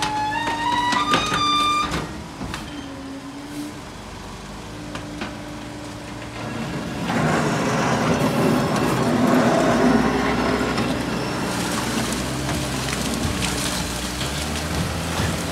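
Heavy work vehicle running, with a whining tone that rises in steps in the first two seconds. About seven seconds in, a few seconds of loud noise rise over the engine, then fade back to the engine alone.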